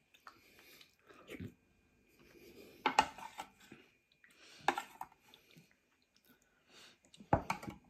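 A person chewing and biting food close to the microphone. There are sharp crunchy bites about three seconds in, near five seconds and twice near the end, with softer chewing between.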